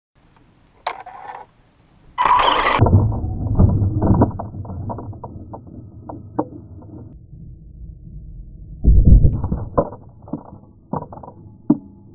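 Radio-controlled car clattering and knocking, with a sharp burst about two seconds in and a loud thud about nine seconds in.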